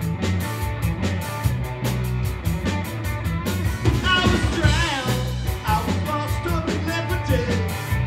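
Live rock band playing: electric guitars, electric bass and a drum kit keeping a steady beat. About halfway through, a high melody line wavers and bends in pitch.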